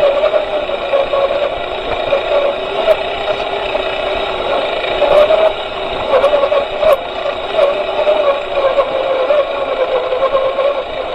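Motor and geared drivetrain of a 1/6-scale RC jeep whining as it drives. The whine wavers up and down in pitch with the throttle, with a few sharp knocks in the middle.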